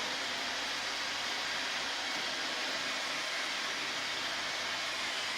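Robot vacuum cleaner running: a steady, even whirring hiss.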